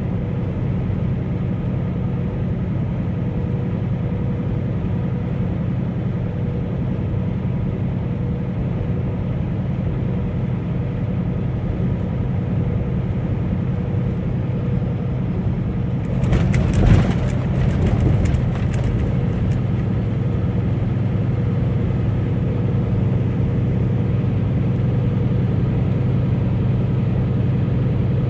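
Truck's engine and road noise droning steadily from inside the cab while driving, with a short burst of rattling clatter a little past the middle.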